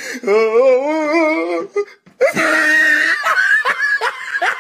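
A person's voice in a long, high, wavering wail, then after a short break a run of quick breathy bursts of laughter, about three a second.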